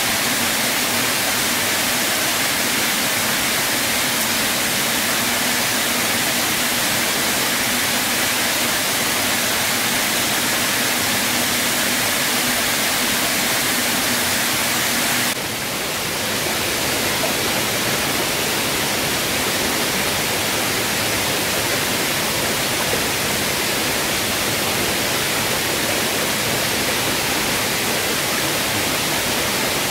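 Rushing water from a forest waterfall and stream: a steady, loud wash of noise. Its character shifts abruptly about halfway through.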